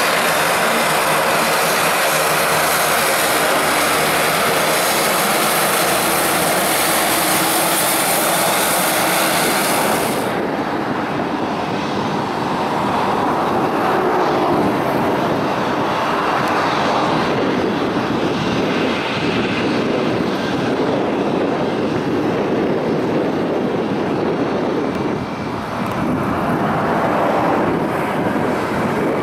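Beechcraft King Air twin turboprop engines running at high power as it rolls along the runway, with a steady, hissy sound. About ten seconds in this cuts sharply to the jet engines of an Airbus A320 rolling on the runway, a fuller, lower sound that swells and eases several times.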